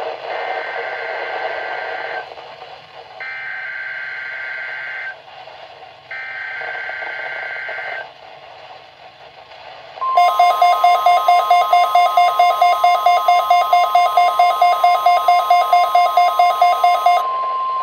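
NOAA Weather Radio test broadcast over a receiver with static hiss: three identical bursts of SAME digital header data, each about two seconds of a buzzy two-tone warble, then the steady 1050 Hz weather radio warning alarm tone. For most of the alarm tone, a louder pulsing electronic beep, about five a second, sounds over it.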